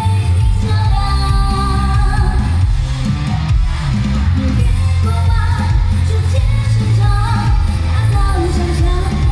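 A woman singing a pop song live into a microphone over loud backing music with a heavy bass.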